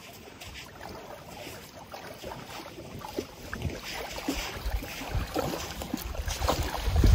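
Shallow lake water lapping gently at a sandy shore in small scattered splashes, with wind buffeting the microphone and growing stronger near the end.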